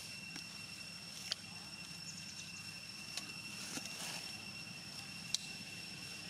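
Steady high-pitched insect drone over a low background hum, with four faint sharp clicks spread through.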